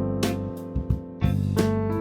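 Background music: an electric piano playing chords over a steady beat.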